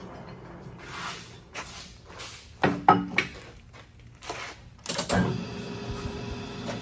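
A series of metal clunks and knocks as the Leblond Regal engine lathe's headstock speed-change levers are shifted. About five seconds in, the lathe starts turning at its lowest spindle speed, about 25 rpm, with a low steady hum.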